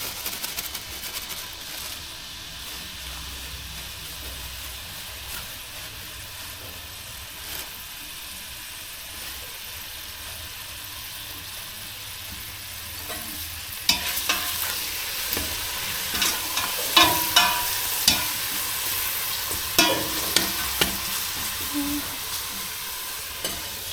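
Lemongrass and garlic sizzling as they fry in a pan. About fourteen seconds in the sizzle grows louder and a utensil knocks and scrapes against the pan several times as the mix is stirred.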